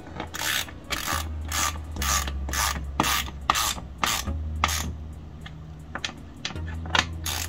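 Socket ratchet wrench clicking in short rasping strokes, about two a second, while 10 mm bolts are driven back in, with a brief pause before a last couple of strokes near the end.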